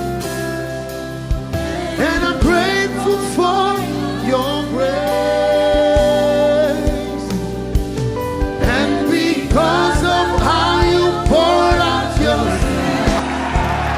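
Gospel worship music: a sliding, ornamented lead melody with a long held note with vibrato around the middle, over keyboard-like accompaniment and drum hits. A noisy wash rises near the end.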